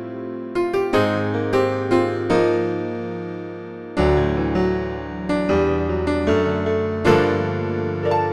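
Yamaha S03 synthesizer playing a factory piano voice: struck chords and melody over held bass notes, with a deep new bass chord about halfway through and another strongly struck chord near the end.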